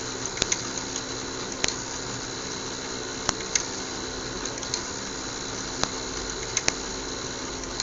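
Small electric motors of a fischertechnik model running with a steady hum, with sharp irregular clicks from the mechanism about nine times.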